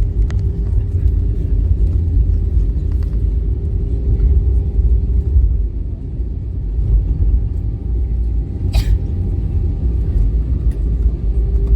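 Airbus A320 cabin rumble as the jet rolls on the ground after landing: a loud, steady low rumble with a faint steady hum. A short sharp noise stands out about nine seconds in.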